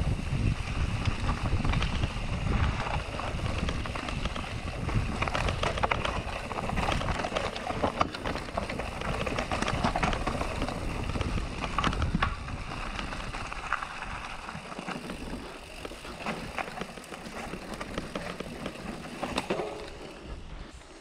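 Canyon Neuron CF9 mountain bike riding downhill over a wet, stony trail: tyres crunching over loose rocks, and the bike clattering and rattling over bumps under a low rumble. The noise is loudest for the first twelve seconds or so, then eases as the pace drops.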